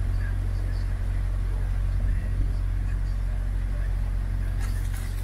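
Narrowboat's diesel engine running steadily under way, a deep even hum.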